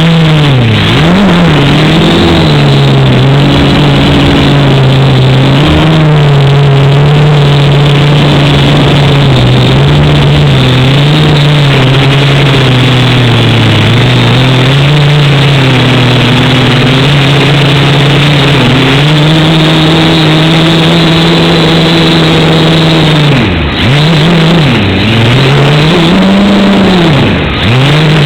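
Quadcopter's electric motors and propellers whining loudly. The pitch wavers up and down with the throttle and drops sharply and recovers a few times, twice near the end.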